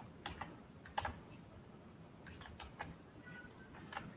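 Faint typing on a computer keyboard: scattered key clicks in short runs as a word is typed, with a mouse click near the end.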